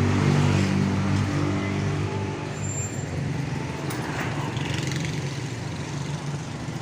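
A motor vehicle's engine running close by on the street, loudest in the first two seconds or so and then fading as it moves off, over steady traffic noise.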